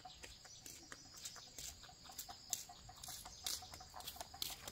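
Chickens clucking faintly, with a quick, even run of soft clucks through the middle and scattered sharp clicks.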